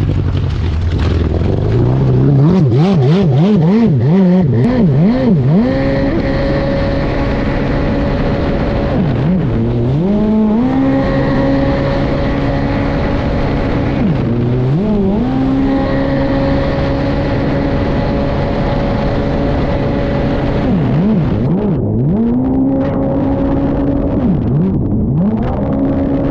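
Stand-up jet ski engine revving up and running near wide-open throttle. The pitch warbles quickly up and down in two stretches, and it falls off and climbs back twice between steady high-rev runs.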